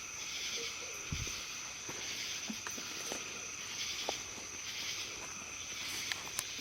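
Night insect chorus of crickets: a steady high trill with a pulsing lower buzz, and a few faint ticks and a soft thump about a second in.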